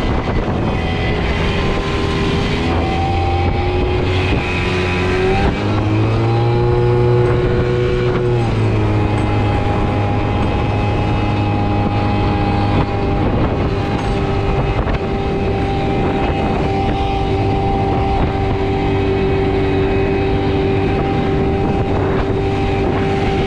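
Motorbike engine running while riding on the road. Its pitch rises about six seconds in as it speeds up, then eases back and holds steady.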